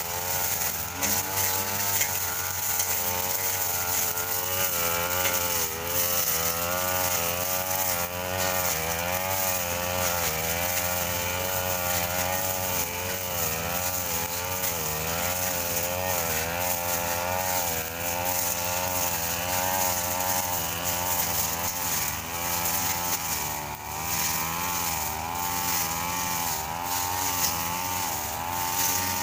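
Backpack two-stroke brush cutter running at high revs while cutting tall grass, its engine note wavering up and down continuously as the blade swings through the growth and takes the load.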